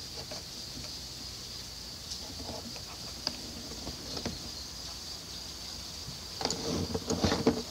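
A steady high-pitched insect chorus, with a few light clicks and then a cluster of knocks and rustling near the end as the camera and its cable are handled.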